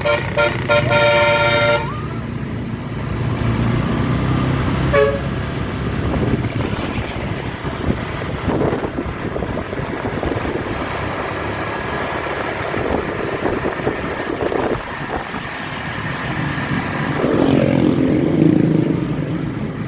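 Eti Trans bus's multi-tone telolet basuri air horn playing a short tune for about the first two seconds, then stopping. After it comes steady engine and road noise, with a brief toot about five seconds in, and the engine noise grows louder near the end.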